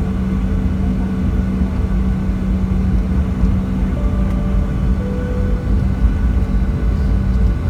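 Boeing 737-800 cabin engine noise: the CFM56-7B turbofans run steadily with a low rumble and a constant hum, heard from inside the cabin.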